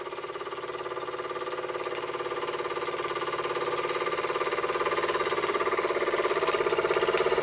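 Albury Manor Mark IV model steam engine, a basic single oscillating-cylinder engine, running smoothly under steam: a fast, even pulsing beat that gradually gets louder.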